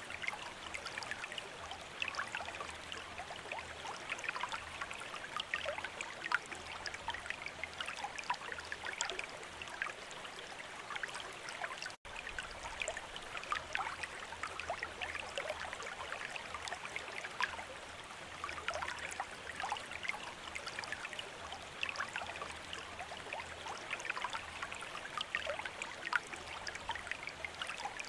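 Water from a bamboo fountain trickling and splashing steadily into its basin, a constant patter of small drips and splashes. The sound drops out for an instant about twelve seconds in.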